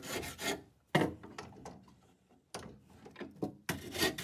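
Surform rasp scraping along the corners of a square wooden blank, rounding it off: about four rasping strokes, each under a second, with short pauses between.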